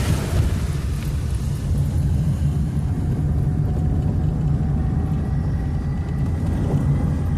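Car engine running with a steady low rumble, a noise the owner puts down to the cylinder head gasket.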